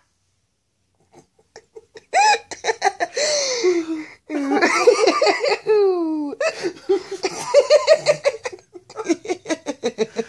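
Near silence for about two seconds, then people laughing hard and uncontrollably in rapid, breathless bursts, with one high laugh sliding down in pitch around the middle.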